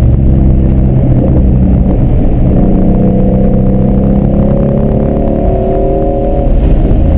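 Shelby GT350's 5.2-litre flat-plane-crank V8 heard from inside the cabin under hard track driving, pulling with its pitch rising steadily from about two and a half seconds in, then the note changes near the end as the driver shifts or lifts.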